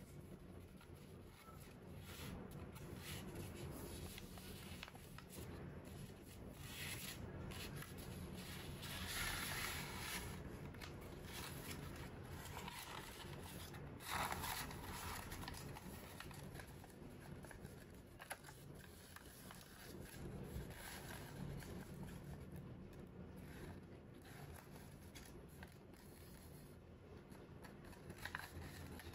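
Origami paper being folded and creased by hand: faint, irregular rustling and scraping of paper, with a few louder swipes of a crease being pressed flat, the loudest about fourteen seconds in.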